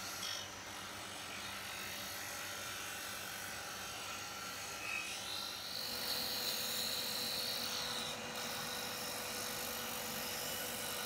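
Small benchtop disc sander running steadily while a walnut knife blade is held against the sanding disc to shape it. A faint higher whine joins for a couple of seconds about halfway through.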